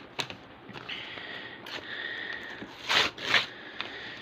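Light handling noise as a mail package is opened: a few small clicks and two short noisy rushes about three seconds in, over a faint steady high-pitched whine.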